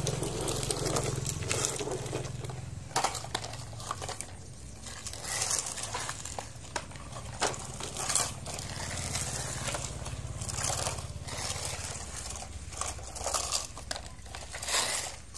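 Plastic toy construction vehicles handled and pushed about in loose dry dirt: irregular crunching and scraping of soil and plastic, several short sharp clicks, over a low steady rumble.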